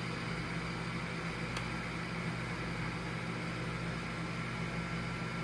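Steady low electrical or mechanical hum, like a fan or appliance running, with a faint thin high whine over it and one small click about a second and a half in.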